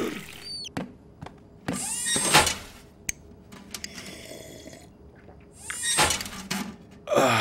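Cartoon drinking sound effects: a hamster slurping and gulping water through a straw, in loud bursts about two and six seconds in, with short mechanical clicks between.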